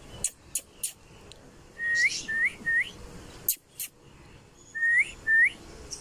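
Short whistles, each holding a note and then flicking upward: three in quick succession about two seconds in, then two more near the end. A few sharp clicks come early and again in the middle.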